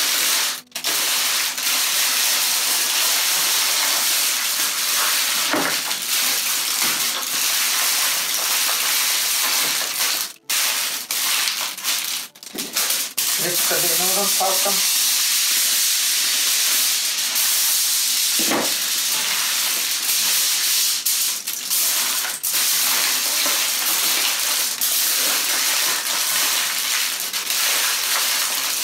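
Aluminium foil crinkling and rustling as it is folded and pressed by hand around a joint of meat.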